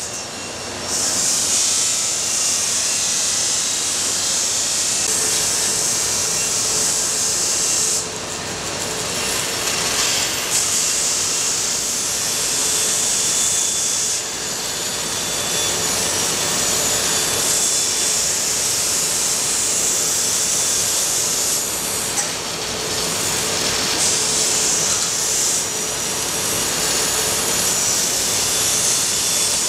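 A woodworking tool cutting or abrading wood in long continuous passes: a steady hissing, rasping sound that breaks off and restarts every few seconds.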